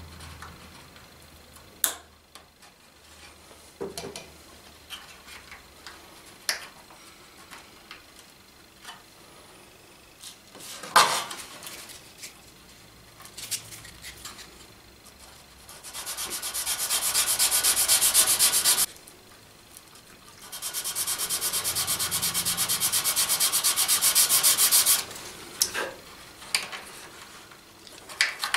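Thin wooden hull planking strips snapping with a few sharp clicks as their ends are broken off with pliers. Then come two long stretches of fast, rasping sanding on the plank ends, the second about four seconds long.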